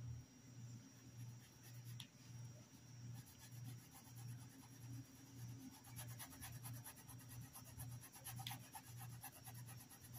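Faint quick scratching of a paintbrush scrubbing fabric paint into a cotton dish towel, growing busier about halfway through. A low pulsing hum sits underneath.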